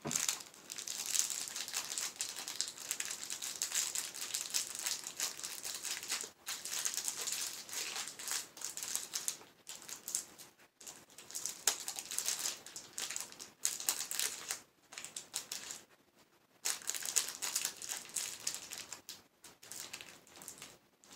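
Plastic candy-bar wrapper crinkling as it is handled and torn open, in a dense run of crackles broken by a few short pauses and a longer break about three-quarters of the way through.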